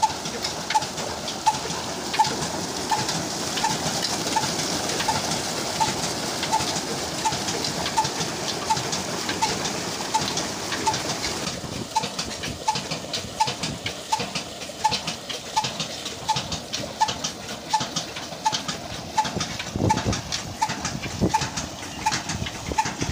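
Old black Ruston-type single-cylinder diesel engine running steadily, driving a pump, with a short chirp repeating on each beat, about one to two a second, over water gushing from the outlet pipes into a brick tank.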